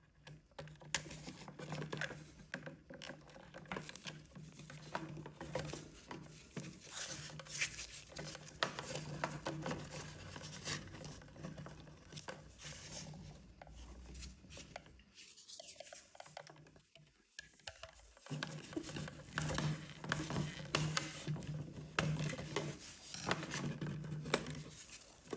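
Faint scratching, rubbing and small clicks of copper conductors being pushed into a wall socket's live terminal and a terminal screwdriver tightening the terminal screws, with a short near-silent break about two-thirds of the way through.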